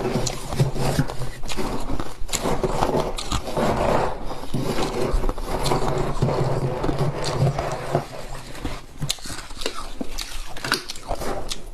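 Freezer ice being chewed: a dense run of irregular crunches that thins after about eight seconds into sparser, sharper cracks.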